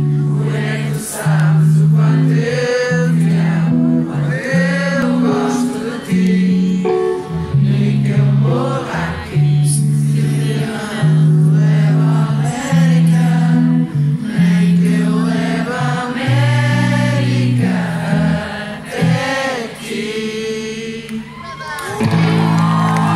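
Live concert music heard from the audience: singing with electric guitar over low sustained notes that change about once a second. Near the end the music shifts to higher held tones.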